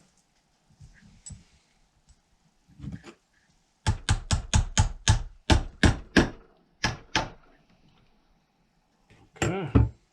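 A rapid series of about a dozen sharp taps, roughly four a second, from about four to seven seconds in, like a small hammer tapping a part into place during chainsaw reassembly. A short pitched sound comes near the end.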